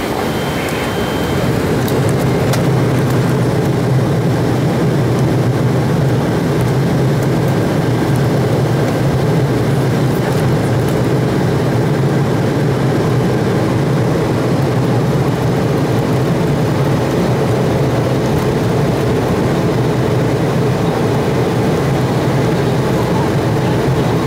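Embraer 175's twin turbofan engines heard from inside the cabin during the takeoff roll: loud, steady engine noise that grows over the first two seconds as the engines spool up to takeoff power, then holds level.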